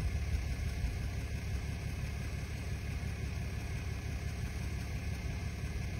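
An engine idling: a steady low rumble with a faint hiss above it.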